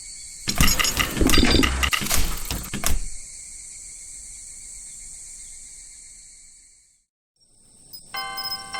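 Train passing with loud clattering knocks for the first few seconds, then a steady hiss that fades out to a moment of silence. A railroad crossing alarm starts chiming near the end.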